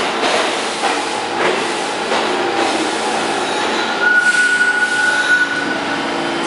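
R46 subway train slowing to a stop at an underground platform, its wheels and cars rumbling. About four seconds in, a steady high squeal from the braking train lasts about a second and a half as the train stops.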